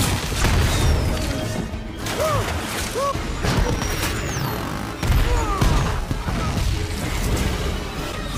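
Action-film battle soundtrack: score music under repeated explosions and crashes as a swarm of attack drones strikes, with heavy booms right at the start and again about five seconds in, and short sweeping whooshes in between.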